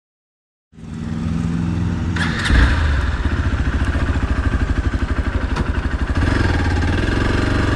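Motorcycle engine running after a moment of dead silence, with a thud about two and a half seconds in, then a steady pulsing beat that grows a little louder near the end.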